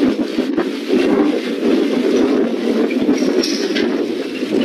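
Wind buffeting the camera's unshielded built-in microphone: a dense, rumbling rush with scattered crackles and no windscreen to soften it.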